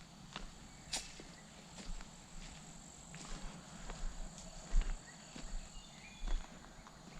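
Insects keep up a steady high-pitched drone, with scattered light clicks and a few soft low thumps of handling or movement; no loud shot or gong strike stands out.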